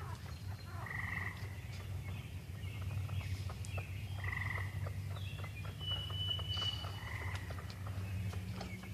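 Frogs and birds calling: short chirps and a thin, drawn-out high whistle over a steady low hum, with many small scattered clicks.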